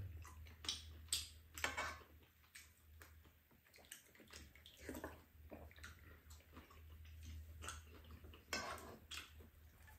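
Quiet eating at a table: scattered clicks of metal spoons against bowls and the pan, with wet chewing and slurping noises, over a faint steady low hum.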